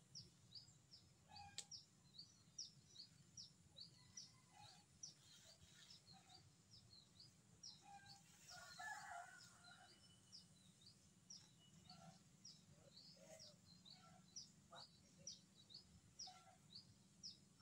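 Faint, quick high-pitched chirps of a small bird, repeating steadily at about three a second, over a low background hum; a few lower calls come in about halfway through.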